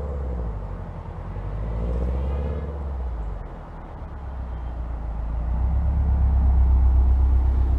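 2011 Subaru WRX's turbocharged flat-four engine running under way, its low rumble growing louder from about five seconds in as the car accelerates.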